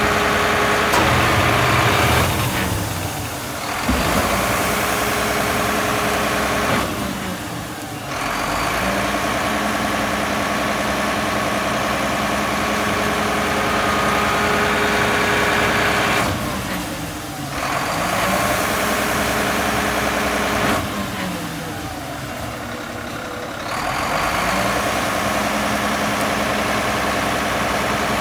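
McNeilus manual side-loader garbage truck on a Mack LR chassis running at idle, its engine note sliding and dipping as the hydraulic packer cycles to compact bags in the hopper, in two similar cycles about 14 seconds apart.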